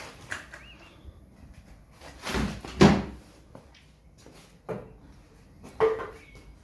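A few sharp knocks and clunks, like parts or tools being handled, the loudest pair about two to three seconds in, with two lighter ones later.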